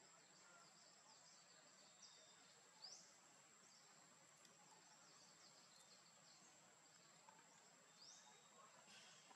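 Very faint outdoor ambience: a steady high-pitched insect drone, with three short rising chirps.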